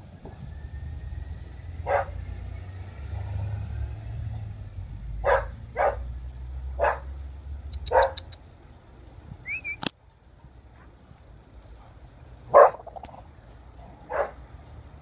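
Dogs playing and barking, about seven single sharp barks at irregular intervals with gaps of up to four seconds between them. A low rumble runs under the first two-thirds and stops about two-thirds of the way through.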